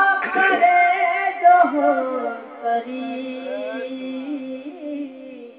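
A man's voice chanting a devotional recitation, with melodic phrases at first, then one long held note from about two seconds in that trails off near the end.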